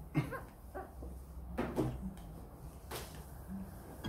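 Faint puppy whimpers, two short high ones within the first second, then soft rustling and a sharp click about three seconds in.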